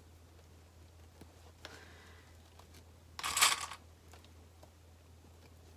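Handling noise as a fabric bag's top edges are clipped together with plastic sewing clips: a soft rustle about a second and a half in and a louder half-second rustle past the middle, over a low steady hum.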